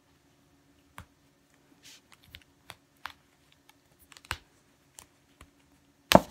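Hands handling a crinkled silk obiage against a tabletop: scattered light rustles and taps at irregular moments, the loudest one near the end.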